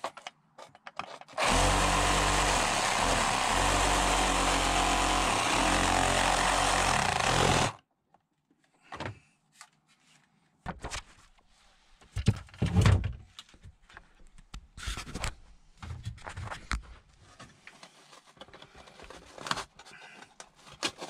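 A handheld power saw runs for about six seconds, its pitch wavering as the blade cuts into wood, then stops. After a pause come scattered knocks and scrapes as a wooden piece is worked loose by hand.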